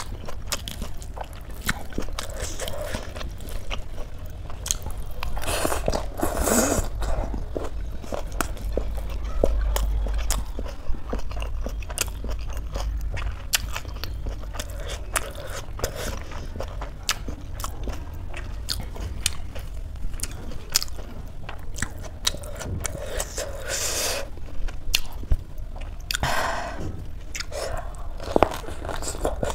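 Close-miked eating: chewing with many wet mouth clicks, and a few louder crunchy bites, the last near the end as a leafy wrap is bitten into.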